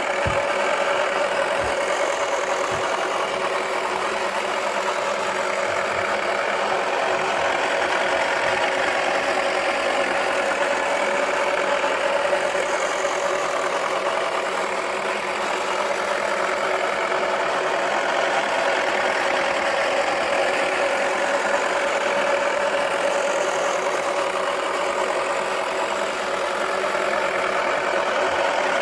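Toy washing machine's small electric motor running with the drum spinning: a steady whirring hum with a constant mid-pitched whine.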